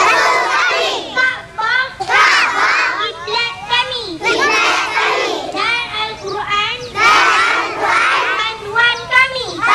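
A group of young children shouting together, their high voices overlapping in short repeated calls.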